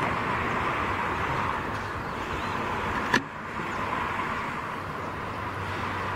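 Steady rushing noise of distant vehicles. A single sharp click comes about three seconds in, where the recording is cut.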